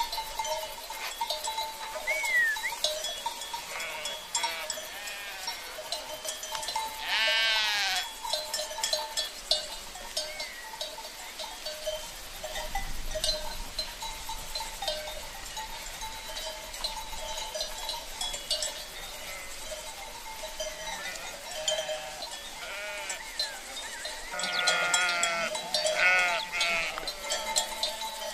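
Sheep and lambs bleating in a flock, with a long wavering bleat about seven seconds in and a run of bleats near the end, over a steady background tone.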